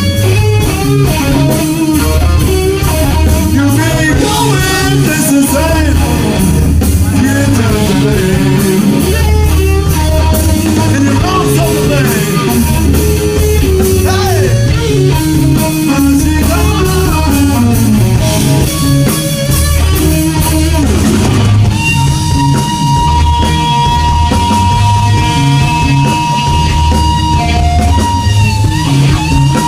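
Rock music with electric guitar, bass and drums: busy guitar lines over a steady pulse, then about two-thirds of the way through a single high guitar note held for several seconds.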